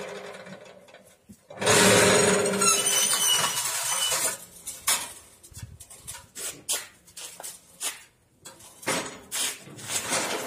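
Cinder block machine: its motor winds down, then about a second and a half in a loud burst of machine noise with a high squeal runs for a couple of seconds, followed by a string of irregular metal knocks and clanks.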